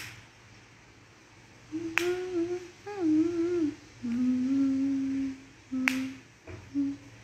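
A woman humming a slow tune with her mouth closed, in short phrases that start a couple of seconds in. Three sharp clicks, one at the very start, one about two seconds in and one near six seconds.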